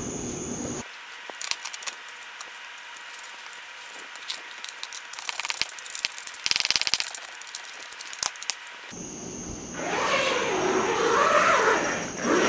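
Socket ratchet wrench clicking in quick runs as a nut is tightened on a steel mounting bracket, with scattered knocks of the tool and hardware. Near the end, a louder, longer rubbing and rustling as the vinyl cover and its zipper are handled.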